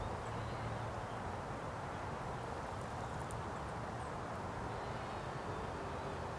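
Steady outdoor background noise, an even low hum with no pauses, with a few faint high chirps around the middle.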